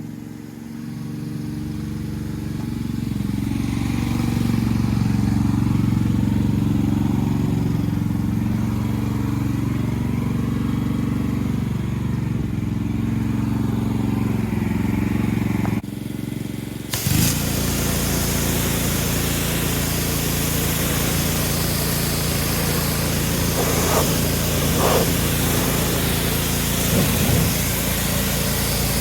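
A small gasoline engine running, its pitch shifting up and down. About 17 seconds in, the sound changes suddenly to a steady small engine with a loud spraying hiss: a gas pressure washer at work.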